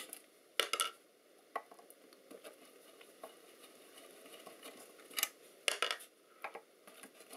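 A few sharp metallic clicks and clinks of a screwdriver working the cover screws on a metal actuator housing, scattered singly at first and then several close together a little past halfway.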